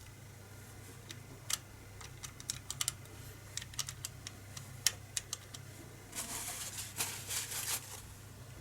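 Small metal parts of a B3 air rifle's trigger mechanism being handled, with scattered light clicks and taps, then about two seconds of scraping near the end.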